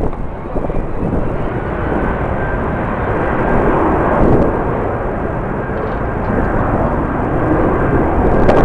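Jet airliner engines rumbling, the sound building gradually louder.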